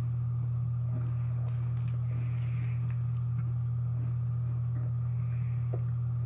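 Steady low electrical hum, with a few faint crunches of someone chewing a crisp peanut butter cracker with his mouth closed, mostly in the first half.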